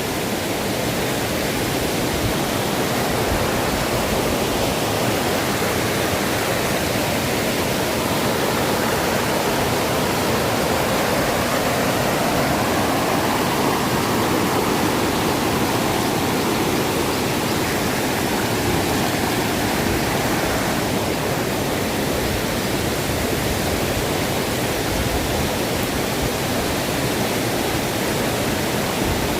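Steady rush of a river and waterfall, an even hiss of falling and flowing water.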